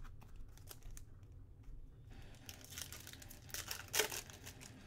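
Trading card pack wrapper crinkling and tearing as it is opened by hand, with scattered crackles and a louder cluster about four seconds in.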